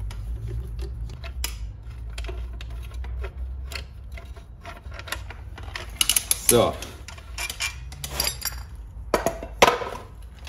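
Light metallic clicks and clinks as the last screws come out and a scooter's variomatic (CVT) cover is worked off the engine case, with a louder metal clatter near the end.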